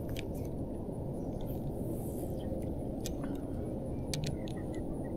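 Steady low rumble with a few faint, scattered light clicks from a spinning reel and rod being handled while a fish nibbles at the bait.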